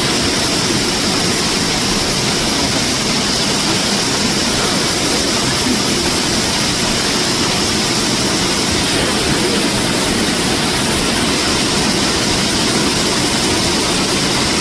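Waterfall pouring into a rock cave: a loud, steady rush of falling water.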